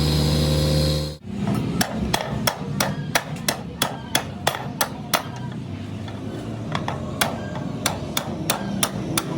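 A steady machine hum cuts off about a second in. Then a hammer strikes steel in a quick, even rhythm of about three blows a second, pauses for about a second and a half midway, and starts again.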